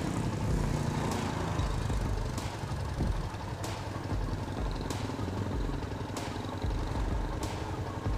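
Motorcycle engine idling steadily, with a sharp tick about every second and a quarter.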